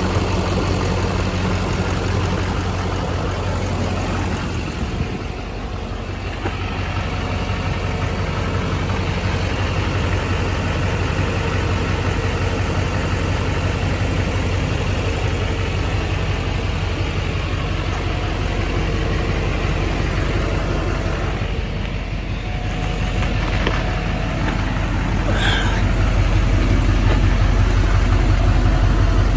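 2007 GMC truck's engine idling steadily, a low even hum that gets somewhat louder near the end.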